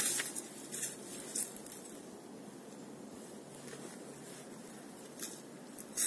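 Faint steady murmur of a slow-flowing, partly frozen river, broken by a handful of short, dry rustles and scratches, the loudest near the start and near the end.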